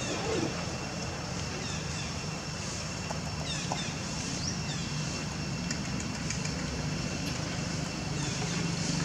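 Steady low engine hum of vehicle traffic, growing louder near the end, under a faint steady high tone and a few short high chirps.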